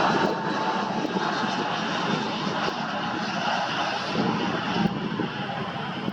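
Airbus A320-232's IAE V2500 turbofan engines, a steady broad rushing noise that eases slightly in loudness just after the start.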